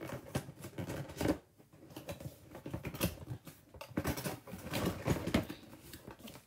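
Cardboard box being opened by hand: its lid flaps are pried up, scraped and folded back in an irregular run of scrapes and clicks.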